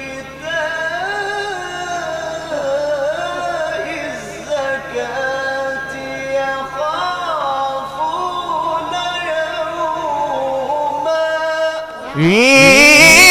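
A male reciter chanting the Quran in the melodic tajwid style: one long, ornamented phrase with the voice gliding and wavering in pitch. About twelve seconds in, the sound turns much louder with rising glides.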